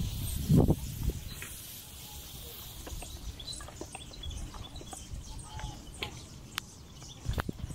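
Outdoor garden ambience with small birds chirping now and then. A brief low rumble comes in the first second.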